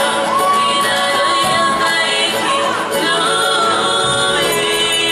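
Music with singing: a voice holds one long note for about a second and a half, then moves on in sliding, held phrases.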